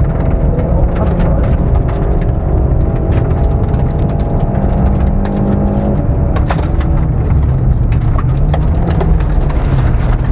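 Opel Corsa A GSI rally car's four-cylinder engine running hard, heard from inside the cabin, with gravel and stones crackling and pinging against the car's underside. The engine note changes about six seconds in.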